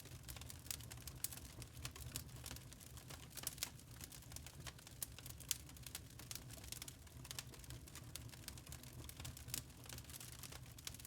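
Log fire crackling in a fireplace: irregular sharp pops and snaps of burning wood over a steady low rumble.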